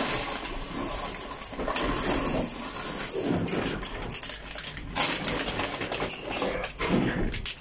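Plastic food packets crinkling and rustling as they are handled and shaken over a stainless steel pot.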